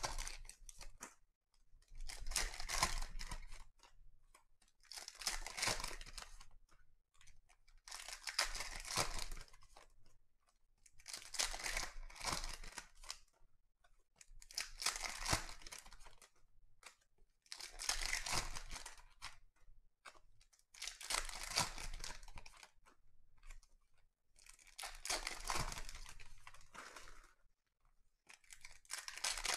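Foil Donruss Optic trading-card packs being torn open one after another, with a crinkling tear of foil wrapper roughly every three seconds.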